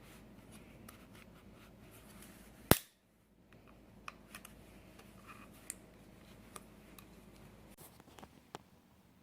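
A plastic coffee-maker part snapping with one sharp, loud crack about three seconds in as it is forced apart, followed by scattered small clicks of plastic pieces being handled.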